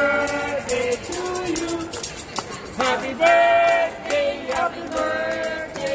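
A group of waiters singing a birthday song together without backing, to clapping and the jingle of a hand-held tambourine.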